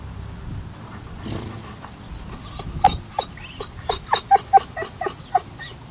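A quick run of about a dozen short, high animal calls, starting about three seconds in and stopping near the end, with the loudest ones in the middle of the run.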